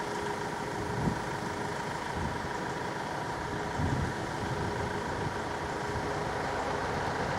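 Diesel locomotive engine running steadily, with a constant drone and a few brief low rumbles.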